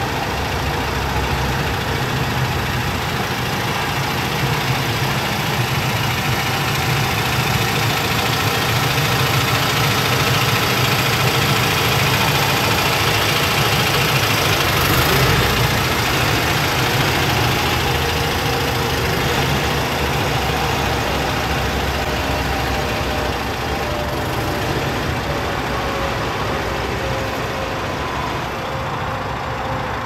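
Daedong PX-series tractor's diesel engine running steadily near idle, about 840 rpm, as the tractor creeps along at walking pace. It grows louder as the tractor comes close about halfway through, then slowly fades as it moves away.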